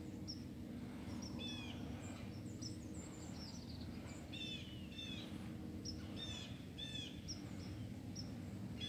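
Small songbirds calling in woodland: short, high chirps that slide downward, repeated every second or so, over a low steady rumble of outdoor background noise.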